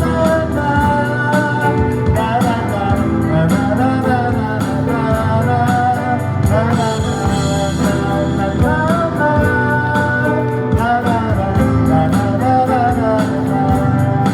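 Live pop-rock band music with a steady drum beat and sustained chords, a melody line running over it.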